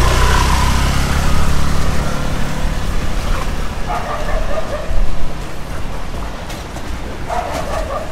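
Low engine rumble of a passing canal boat, fading over the first few seconds, over choppy water. A dog barks in two short bouts, around the middle and near the end.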